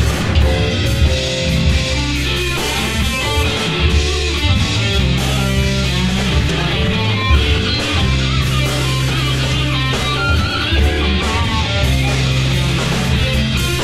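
Live band playing an instrumental passage with no singing: electric guitar over bass guitar, keyboards and drum kit, with steady sustained bass notes.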